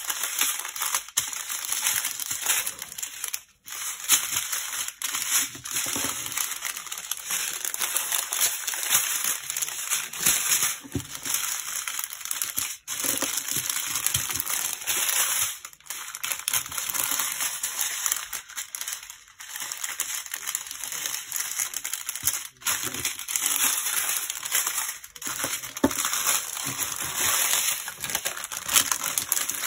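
Strips of small plastic bags of diamond painting drills crinkling and rustling as they are folded and pushed into a larger plastic bag, with the tiny acrylic drills inside shifting and clicking.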